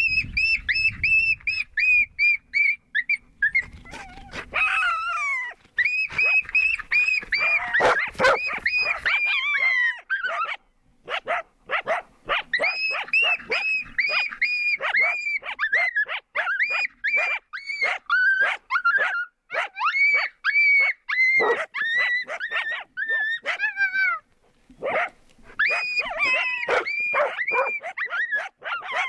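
Coyotes yipping and howling: a rapid run of short, high, yelping notes, about three a second, broken by brief pauses about four, eleven and twenty-four seconds in.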